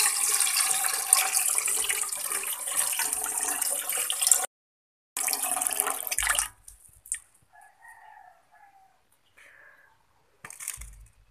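Milky rice-rinse water poured off soaked glutinous rice in a steady stream into a metal pot, splashing. The stream breaks off for a moment past four seconds and stops about six and a half seconds in. A short knock comes near the end.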